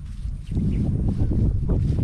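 Wind rumbling on the microphone outdoors. It eases for about half a second at the start, then picks up again, with a couple of soft brushing sounds near the end.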